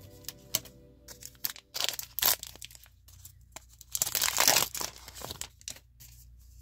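A trading-card booster pack's wrapper crinkling and being torn open, in short crackly bursts about two seconds in and a longer, louder rip about four seconds in, with light clicks of handling between them.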